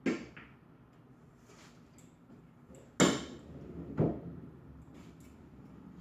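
Pool jump shot: the jump cue strikes the cue ball with a sharp crack about three seconds in, and the ball lands with a second knock about a second later. A softer knock right at the start.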